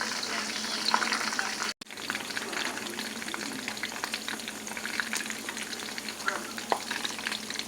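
Chicken pieces deep-frying in hot oil: a steady sizzle with dense small crackles. It cuts out briefly a little under two seconds in, then carries on.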